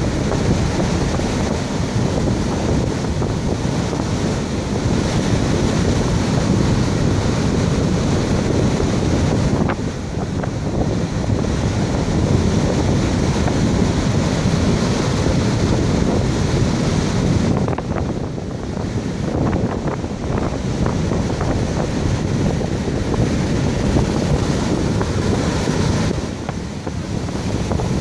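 Rough surf breaking and washing up the beach, with gusting wind buffeting the microphone; the rush eases briefly a few times as waves pull back.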